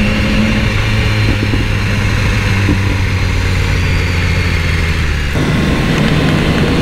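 BMW S1000R's inline-four engine running steadily while the bike is ridden, with wind rushing over the microphone; its note changes about five seconds in.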